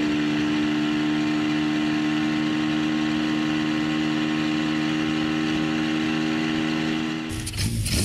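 Motorcycle engine running at a steady, unchanging speed while the bike is ridden, heard from on board. Near the end it gives way to a deeper rumble.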